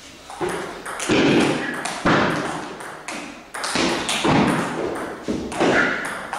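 Celluloid table tennis ball being hit back and forth with bats and bouncing on the table during a rally: a steady run of sharp clicks, about one a second, each with a short ring after it.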